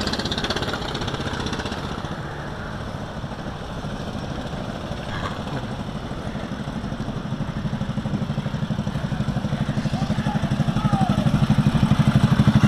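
Go-kart engine running at low revs with a rapid, even putter, growing louder over the last few seconds as the kart rolls in after the finish.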